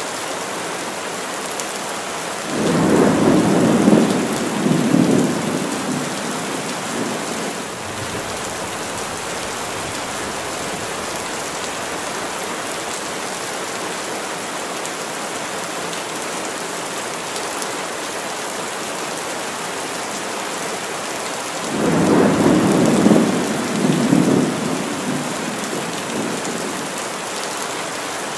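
Heavy rain falling steadily on a conifer forest, with a low rumble of thunder a couple of seconds in and another a little past twenty seconds, each lasting a few seconds.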